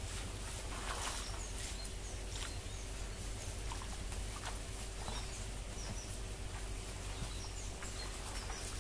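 Splashing steps through shallow standing water, over a low steady hum, with small birds chirping now and then.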